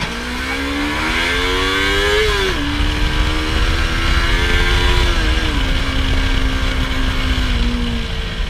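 Yamaha YZF-R25's 249 cc parallel-twin engine through its stock exhaust, accelerating: the pitch climbs and drops sharply at two upshifts, about two seconds and five seconds in, then holds fairly steady before falling off near the end.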